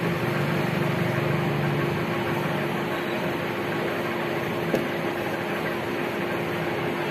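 Steady machine hum: a constant mid-pitched tone over an even hiss, with a lower hum that fades a little after the first couple of seconds. A single brief click about two-thirds of the way through.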